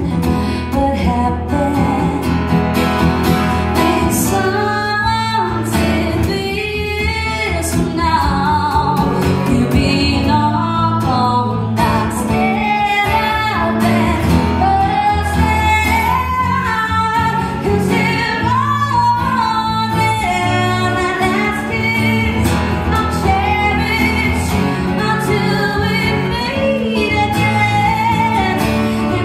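A woman singing a pop ballad live while strumming an acoustic guitar. Her sung lines rise and fall over steady chords.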